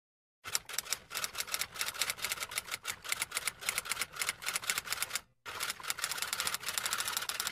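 Typing sound effect: a rapid run of sharp key clicks, several a second, starting about half a second in, pausing briefly about five seconds in, then carrying on.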